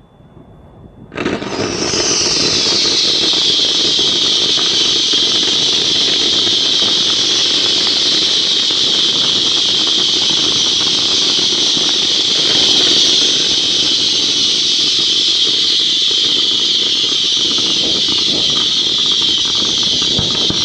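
Fireworks hissing: a loud, steady hiss starts suddenly about a second in and holds without a break.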